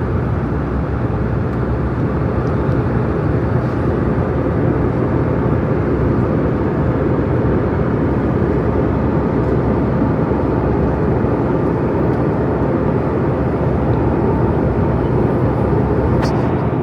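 Airliner cabin noise in flight: a steady, even rush of engine and airflow noise with a low constant hum.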